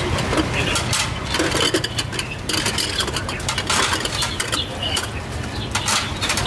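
Busy street-stall noise: a steady low rumble with frequent small clinks and clatters, like metal and dishes being handled.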